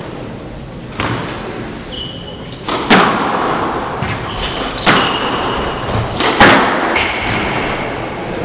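Squash rally: the ball cracks off rackets and the walls about six times, with a short echo in the court after each hit. Court shoes squeak briefly on the wooden floor between shots.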